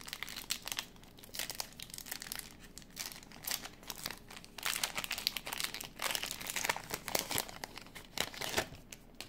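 A foil Pokémon Evolutions booster pack being torn open and crinkled in the hands. Its wrapper makes irregular bursts of crackling rustles that stop just before the end.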